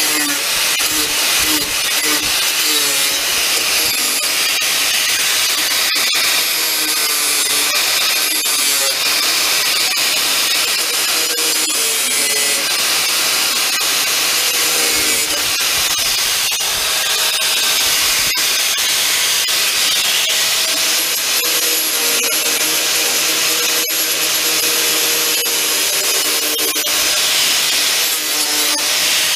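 Angle grinder running continuously, grinding the tops off steel tack welds on a car's sill so the next welds can penetrate. Its motor pitch wavers up and down as it is pressed into the metal.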